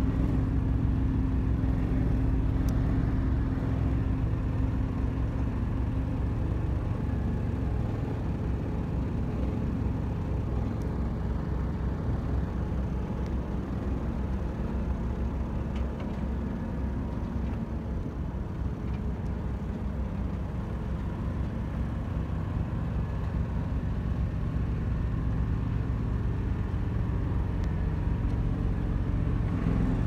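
A motor vehicle's engine running steadily: a deep, even sound that holds level, with no revving or passing.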